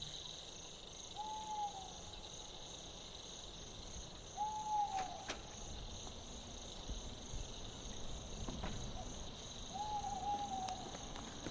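Night ambience: an owl hooting three times, each call short and sliding slightly down, over a steady chorus of crickets.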